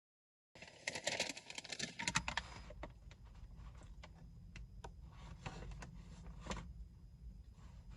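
Faint scattered clicks and light taps, a few louder ones in the first couple of seconds, over a low steady hum, like small objects being handled.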